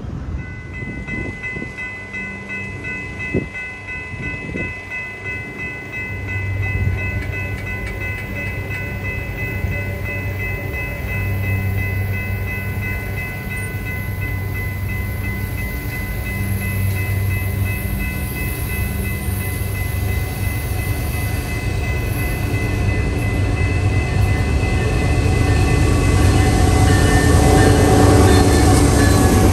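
Canadian Pacific GE ES44AC diesel locomotive approaching and passing, its engine rumble growing louder as it nears. A steady high tone holds above the rumble for most of the time and drops in pitch as the locomotive goes by near the end.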